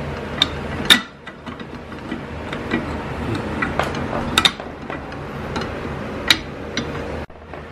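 Irregular sharp clicks and knocks of parts and tools being handled while a dump cart's handle is assembled, over a steady low room hum.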